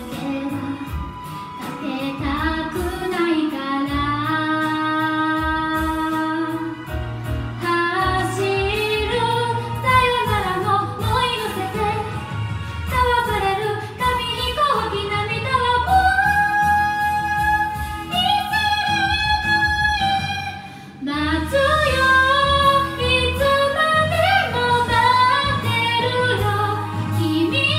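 A woman singing a Japanese pop song into a handheld microphone over a karaoke backing track, with some long held notes in the middle. The backing drops out briefly about two-thirds of the way through, then the full accompaniment comes back in.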